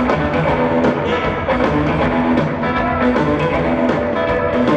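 Live rock band playing an instrumental passage without vocals: electric guitar, bass and drum kit, amplified through a large arena's PA and heard from the stands.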